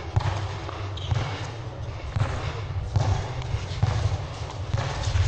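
Basketball being dribbled on a concrete court: repeated low thuds of the ball hitting the ground, roughly one a second.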